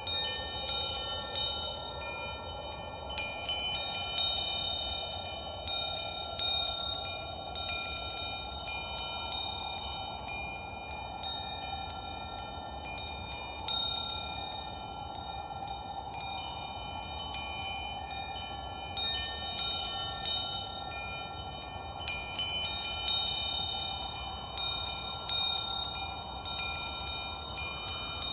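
Wind chimes ringing, their metal tones struck again in irregular clusters every few seconds and left to ring on, over a soft steady background wash.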